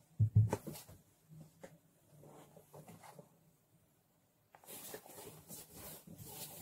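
Cardboard box knocking and scraping as cats move in and on it. There are a few dull thumps about half a second in, small scattered clicks, then steady scratchy rustling of the cardboard from about two-thirds of the way in.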